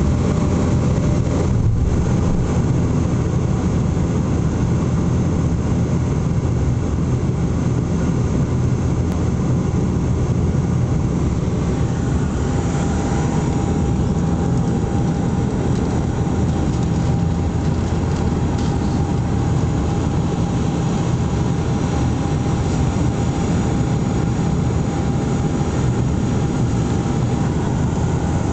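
Cabin drone of a Bombardier Dash 8 Q400's turboprop engines and propellers on landing approach with the gear down: a steady, loud, deep rumble with a constant propeller hum that doesn't change.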